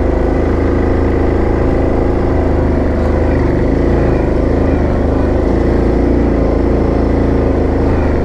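2017 Yamaha Grizzly 700 ATV's single-cylinder four-stroke engine running steadily under load as the machine climbs a steep dirt trail.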